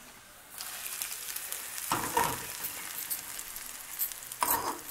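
Hot ghee with fried cashews sizzling as it is poured from the pan onto idli batter, starting about half a second in, with a light knock about two seconds in.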